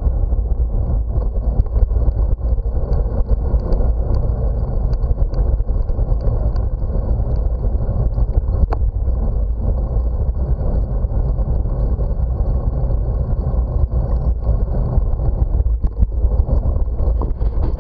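Steady low rumble of riding a bicycle on an asphalt cycle path: wind buffeting the camera's microphone together with tyre and road noise.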